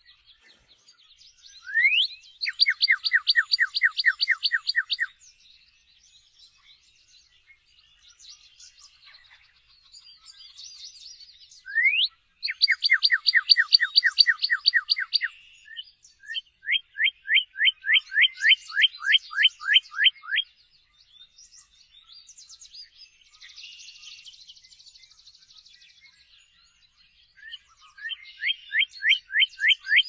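Northern cardinal singing: four phrases of loud, clear down-slurred whistles repeated in quick series, the first two each opening with a single rising slur. Fainter chirps fill the gaps between phrases.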